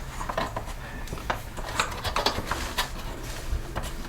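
Irregular small clicks and scrapes of a hand tool digging and prying against the blower's plastic housing to work a stake loose.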